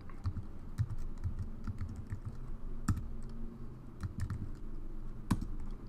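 Typing on a computer keyboard: separate keystrokes at an uneven, unhurried pace, with one louder keystroke a little after five seconds in.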